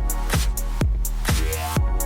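Background music with a steady electronic beat, a kick drum about every half second under held synth notes.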